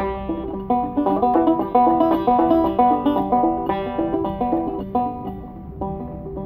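Zither banjo played solo: a picked instrumental passage of plucked notes and chords, easing off about five seconds in.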